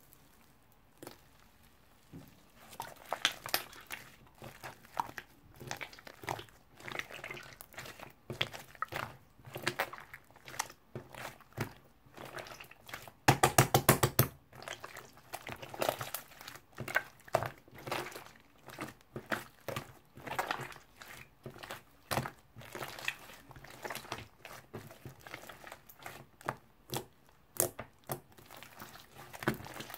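Glossy clear slime mixed with foamy slime being squished and kneaded by hand, giving a stream of sticky clicks and crackles that starts a couple of seconds in. About halfway through comes a rapid run of clicks, the loudest part.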